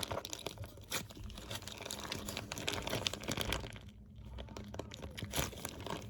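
A slime-filled plastic squishy bag squeezed and kneaded close up, giving a dense, irregular crinkling and crackling of the plastic, a little quieter about four seconds in.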